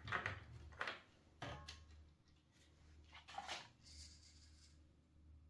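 A few faint, scattered knocks and rubs from hands handling a 3D-printed plastic RC car body.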